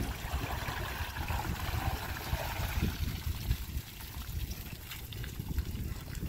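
Water trickling and streaming off a boat hull and its trailer as they are hauled up the ramp out of the water, over a low uneven rumble.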